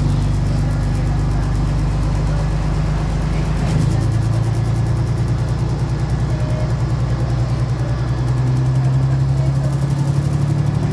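Diesel railcar's engine running steadily under the floor, heard from inside the train, with its note changing about four seconds in.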